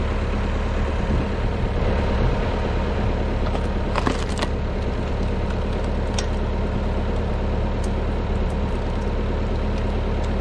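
Massey Ferguson 165 tractor engine running steadily, driving the hydraulics of a log splitter whose ram pushes a thick log slowly against the wedge. A few sharp cracks come about four seconds in.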